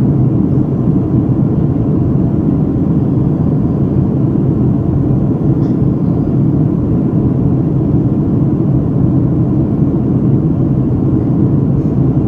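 Steady, loud low rumble of an airliner, even and unchanging in pitch.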